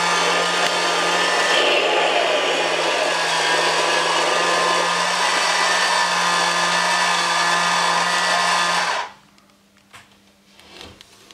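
Haynes build-your-own Porsche 911 flat-six engine model running: a steady mechanical whir with a constant low hum, which cuts off suddenly about nine seconds in, leaving near silence with a few faint clicks.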